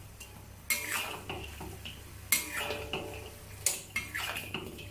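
A metal wok spatula scraping and clanking against a black iron wok while tossing fried pork ribs in sweet and sour sauce. Three sharper scrapes come about a second and a half apart, with lighter clinks between them.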